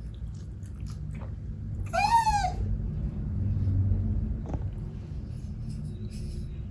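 A kitten meows once, a short call about two seconds in that rises and falls in pitch, over a steady low hum.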